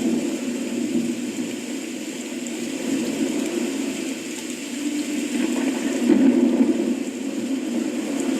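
Thunderstorm: a steady rumble of thunder with rain, swelling about five seconds in.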